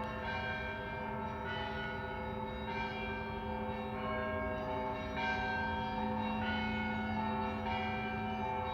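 Russian Orthodox church bells ringing a peal: several bells of different pitch struck in quick succession, a fresh strike about every half second to a second over a long overlapping ring, with a deep steady hum beneath.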